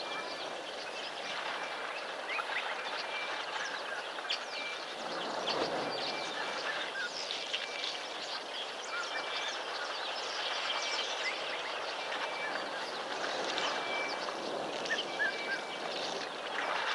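Wild birds chirping and calling in a dense overlapping chorus, with one high note repeated about once a second, over a steady hiss. A brief louder rush of noise comes about five seconds in.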